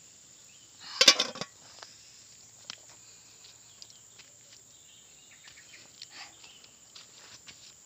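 A metal pot lid clattering onto a cooking pot about a second in, followed by scattered light knocks and rustling of handling. A steady high insect drone runs underneath.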